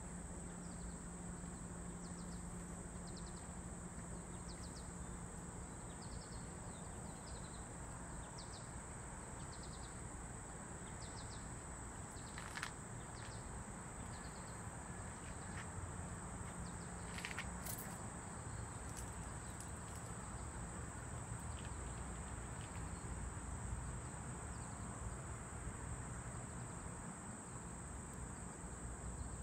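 Summer outdoor ambience: a steady high-pitched insect drone with short chirps repeating about once a second through the first third, over a low background rumble. A few sharp clicks come near the middle.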